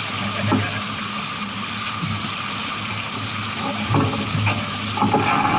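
Steady rush of water, with a low steady hum underneath and a couple of brief knocks about four and five seconds in.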